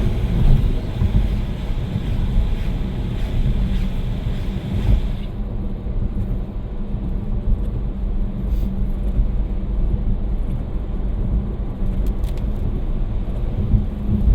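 Road noise inside a Tesla electric car at speed on wet pavement: a steady low rumble of tyres on the wet road. A higher hiss drops off sharply about five seconds in.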